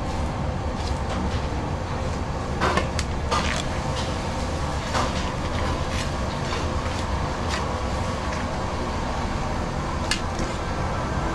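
Cleaver knocking and scraping against a wooden chopping board while a large fish is filleted, with a handful of irregular sharp taps over a steady low rumble.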